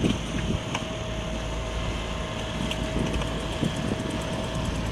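Boat engine running steadily beneath the deck, a low rumble with a faint steady whine over it.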